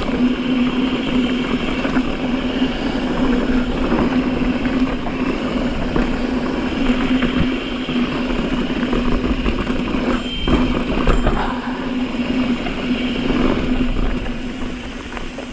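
Mountain bike riding fast down a dirt fire road: wind rushing over the camera microphone and tyres rolling over dirt and loose rock, with a steady buzz running underneath. The noise eases off near the end as the bike slows.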